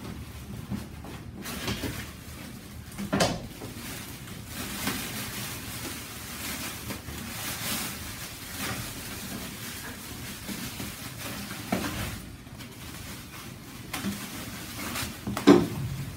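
Cardboard grill box and packing material being handled: steady rustling and scraping with scattered knocks, the loudest thump about a second before the end.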